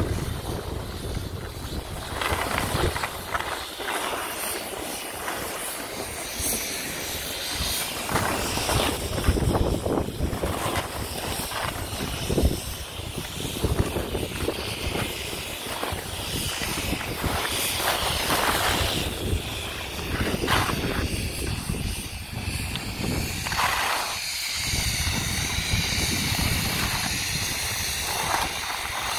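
Wind rushing over the microphone during a descent of a groomed ski slope, with the scrape of edges on packed snow coming and going in uneven surges.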